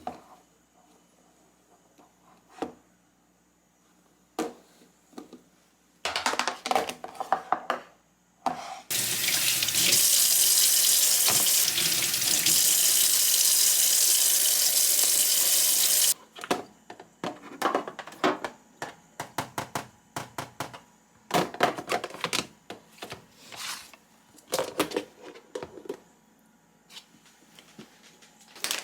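Kitchen tap running into a sink for about seven seconds, starting and stopping abruptly. Scattered knocks and clatter from things being handled come before and after it.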